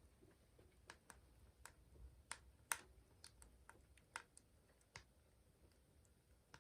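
Faint, irregular sharp clicks and ticks, with one louder snap about three seconds in.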